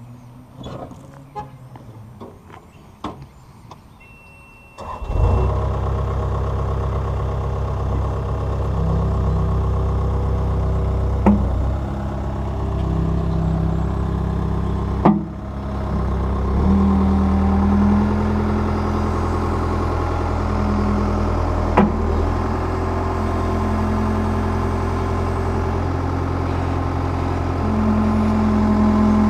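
Skid steer loader engine started about five seconds in, after a few clicks and a short beep, then running steadily with its pitch stepping up at times as the machine works. Three sharp metallic knocks stand out over the engine.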